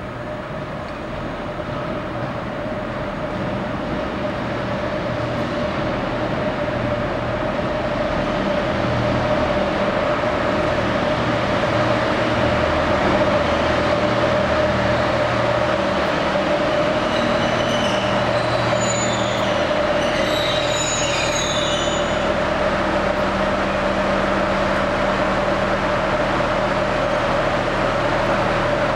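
Network Rail Class 950 diesel multiple unit 950001 running into the platform, its engine sound growing louder over the first twelve seconds or so, then holding steady as it draws to a stand. Brief high-pitched squealing from the train as it slows, a little past the middle.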